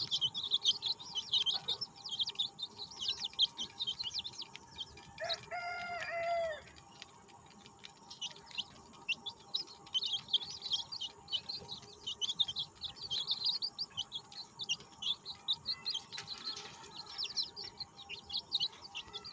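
A brood of month-old chicks chirping, many quick high chirps overlapping, with a lull a third of the way through. About five seconds in, one longer, lower call lasts about a second and a half.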